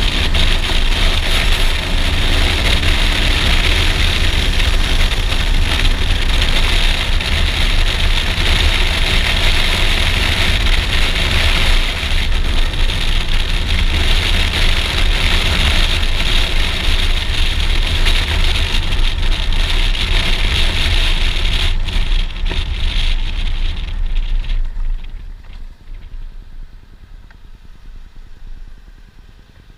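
Suzuki V-Strom DL650XT motorcycle with its 645 cc V-twin engine riding along a city road, heard at a helmet-mounted camera with heavy wind and road rush over the engine. About 24 seconds in the noise drops sharply as the bike slows to a stop, leaving the engine idling quietly.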